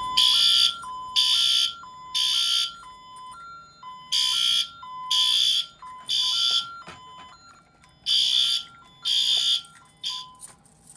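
Fire alarm sounder on a Honeywell Vista 20P fire panel, going off in the temporal-three evacuation pattern: three short loud blasts, a pause, then the group repeats. A quieter beep alternating between two pitches runs underneath. Everything cuts off near the end as the alarm is silenced.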